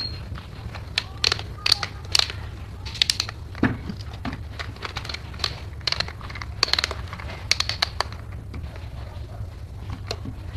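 Irregular hard plastic clicks and rattles as black plastic plunger handles are pushed onto, twisted on and pulled off hollow plastic toy balls. The clicks come thickest in the middle and thin out near the end, over a steady low hum.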